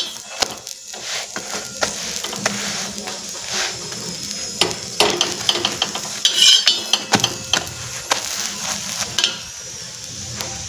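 Slotted spatula scraping and pressing a sattu-stuffed roti on a hot flat tawa, a short scrape or tap every second or two, over a steady light sizzle from the pan.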